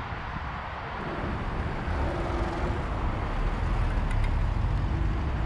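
Steady low rumble of road vehicle noise, growing a little louder about two seconds in.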